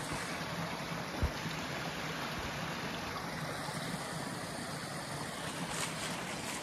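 Steady rush of a small stream's running water, with a single dull thud about a second in.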